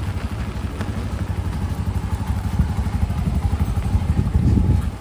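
Strong typhoon wind buffeting the microphone, a loud, uneven low rumble that swells about four seconds in, over a steady hiss of heavy rain.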